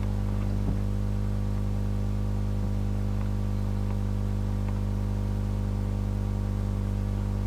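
Steady electrical mains hum with a buzzing stack of overtones and a faint hiss, unchanging throughout. There is a faint click under a second in.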